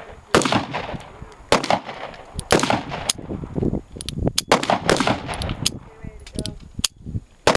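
Heritage Rough Rider .22 LR single-action revolver firing about four shots, a second or two apart, each a sharp crack with a short tail. Fainter, sharper cracks of other gunfire fall between and after them.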